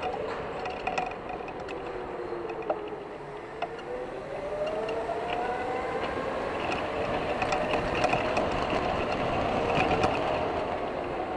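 Electric go-kart's motor whining under way. The pitch falls to a low point about three seconds in, as the kart slows for a corner, then rises as it accelerates and holds high, over a rough rolling rumble with scattered sharp rattles.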